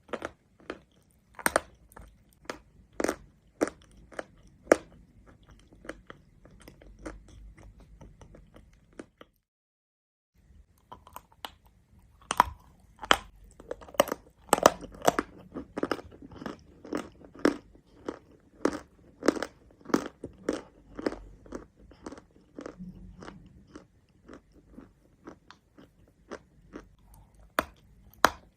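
Close-miked biting and chewing of hard mountain chalk: a series of sharp, crisp crunches, sparse at first, then a dense run of crunches after a second of total silence about a third of the way in.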